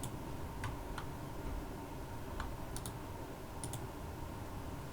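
About half a dozen sharp computer clicks at irregular intervals, some in quick pairs, from operating CAD software, over a low steady background hum.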